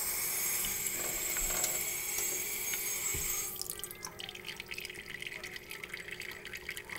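Kitchen faucet running into a stainless steel sink with a steady hiss of water. About three and a half seconds in, the flow drops to a thin trickle that patters and drips onto a cup below the spout.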